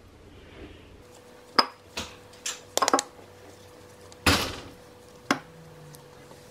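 Kitchen bowls being handled as kneaded bread dough is moved from a stand mixer's metal bowl into a large glass bowl: a few sharp knocks and clinks, then a louder thump about four seconds in as the dough goes into the glass bowl, and one last knock.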